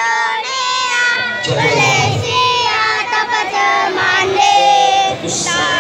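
Crowd of spectators shouting and cheering, many high voices overlapping without a break.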